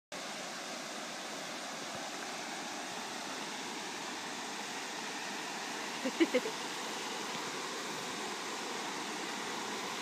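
Steady rush of creek water spilling over a low-water concrete ford. A car crossing the ford is faint beneath it, and three brief, sharp pitched sounds stand out about six seconds in.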